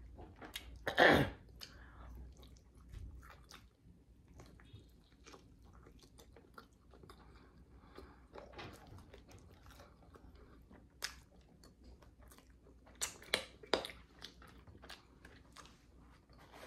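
Close-miked chewing of a meat-and-vegetable pizza: wet chewing with small crunches and mouth clicks, a louder bite about a second in, and a few sharper clicks and knocks late on.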